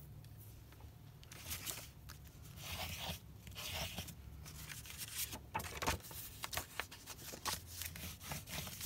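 Paper rustling and crinkling with scattered light clicks and taps, as strips of tape-backed scrap paper are handled and pressed onto card stock.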